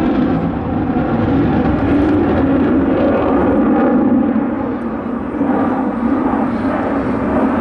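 Sukhoi Su-35 fighter's twin AL-41F1S afterburning turbofan engines, heard as loud, steady jet noise that dips slightly about five seconds in.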